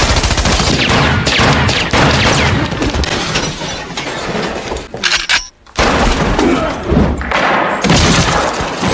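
Action-film fight sound effects: gunshots and heavy thuds and crashes as bodies tumble down a stairwell, breaking off briefly about five and a half seconds in before more impacts.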